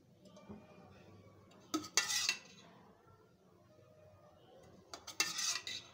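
Metal spoon clinking and scraping against a cooking pot in two short bursts, about two seconds in and again near the end, as spoonfuls of ghee are added. No sizzling.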